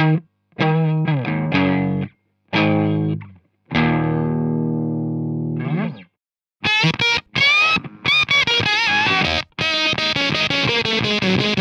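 A Fender Jaguar electric guitar through an Orange Rocker 30 amp plays clean phrases of separate ringing notes. About six and a half seconds in, the gated octave fuzz pedal, a Bumble Buzz clone based on the Kay Fuzztone, is switched on: the tone turns thick and buzzy with bent, wavering notes, and it cuts off sharply to silence between phrases.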